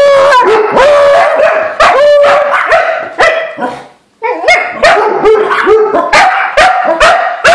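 A pack of dogs barking excitedly at a squirrel. The first few seconds hold long, drawn-out barks. After a brief silence a little past the middle, quick barks follow at two or three a second.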